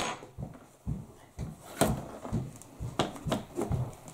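A few sharp knocks and soft thumps from a metal loaf pan being grabbed with a towel and tipped over to free a baked loaf of bread stuck in it; the loudest knock comes right at the start.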